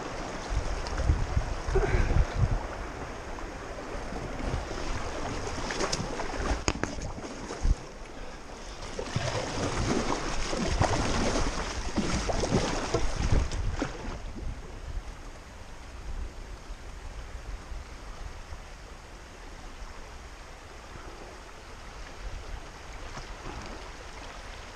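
River current rushing and splashing around a paddled canoe, louder for several seconds around the middle, with a few sharp knocks about six to eight seconds in and a low rumble of wind on the microphone.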